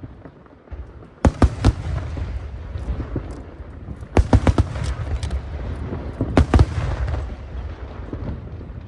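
Large aerial firework shells bursting overhead: sharp bangs in clusters about a second in, around four seconds in and again around six and a half seconds in, with a continuous low rumble and crackling between them.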